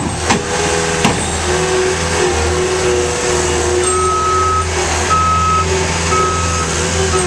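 Caterpillar skid steer loader running, its engine steady under a wavering whine, with two sharp knocks in the first second or so. From about halfway in, its backup alarm beeps about once a second as it reverses.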